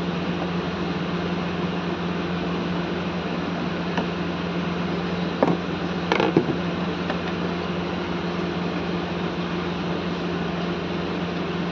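Screwdriver work on a small amplifier board: a few light clicks and taps of the screw and the metal heatsink cover near the middle, over a steady fan-like hum.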